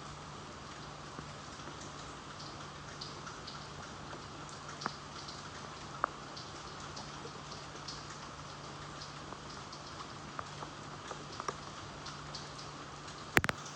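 Gentle rain falling steadily, with individual drops tapping here and there over the steady patter and a low steady hum underneath. Near the end there is a sharp, louder double tap.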